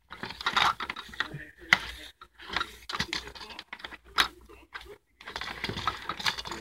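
Small plastic toys rattling and clattering against each other and the bowl as a hand stirs them, in quick irregular clicks.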